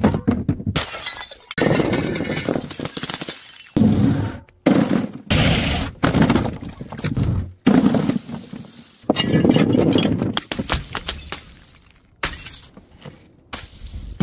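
Glass bottles smashing one after another, several separate breaks in quick succession, each starting suddenly and trailing into crunching and tinkling of broken glass.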